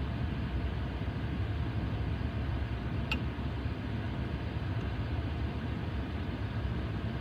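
Steady road and engine rumble inside a car's cabin, with one small click about three seconds in.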